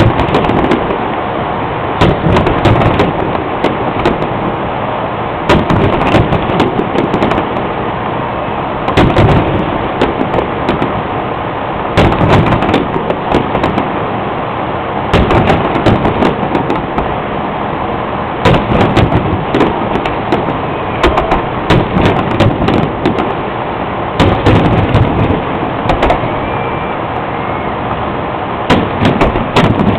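Fireworks display shells bursting: volleys of several loud bangs about every three seconds, over a steady din in between.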